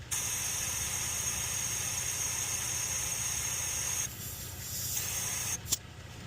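Steady hiss of escaping air with a high whistle in it. It starts suddenly, cuts off about four seconds in, comes back weaker for a moment, then ends with a click.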